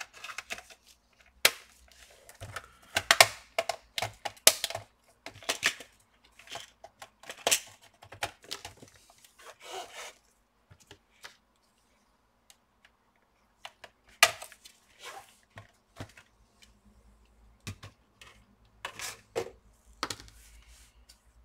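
HP 15-af laptop's plastic case being pried apart and lifted off: irregular snapping clicks and cracks of the plastic clips releasing, with scraping and knocks of the panel. The clicks are busiest for the first ten seconds, stop for a few seconds, then come back as a few knocks.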